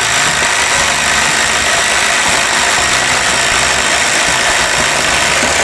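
Ryobi brushless cordless impact driver in impact mode 3, hammering loudly and steadily as it bores a 1-inch paddle bit into a timber board under load.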